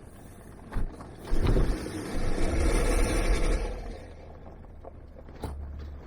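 Off-road vehicle driving a rough forest trail: a thump about a second in, then a loud rush of tyre and body noise with a low rumble for a few seconds that fades, and another knock near the end.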